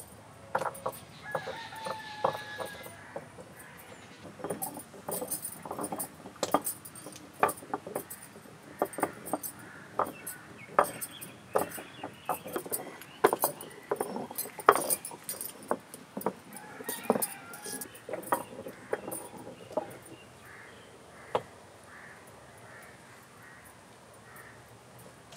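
Hand-turned stone wet grinder (aattukallu): the cylindrical grinding stone knocking and scraping against its stone basin as it is rotated through wet paste, in irregular clicks and knocks that thin out after about twenty seconds.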